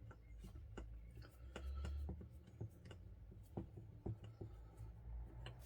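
Scattered light clicks and taps of small kit parts and tools being handled at a workbench, irregular and unrhythmic, over a low background rumble.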